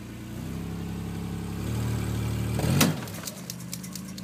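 Pickup truck engine revving up in two steps as it pulls on a chain to drag a fence post out of the ground, with a sharp crack near the middle. The engine then drops back to idle while a run of light clicks follows.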